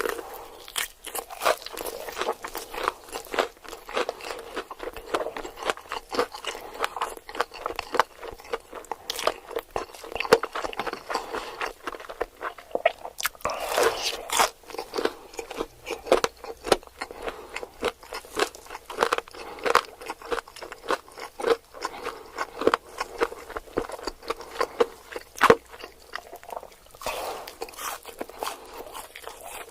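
Close-miked eating: crunchy bites and chewing of fried fast food, with many irregular crackling crunches.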